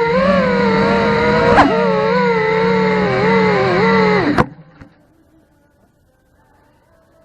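FPV racing quadcopter's brushless motors and propellers whining, the pitch wavering up and down with throttle over a steady lower hum. About four and a half seconds in the pitch drops sharply and the sound cuts off as the motors stop.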